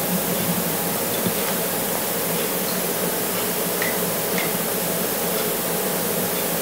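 A steady hiss at an even level, with a couple of faint short high chirps about four seconds in.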